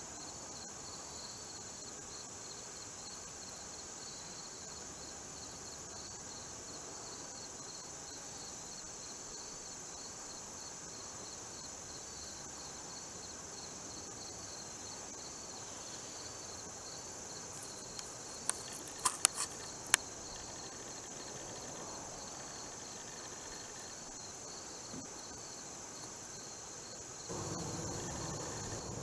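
Insects chorusing in the woods, a steady high hum with a pulsing trill. About two-thirds of the way through come a few sharp clicks, and near the end the background steps up to a louder, rougher noise.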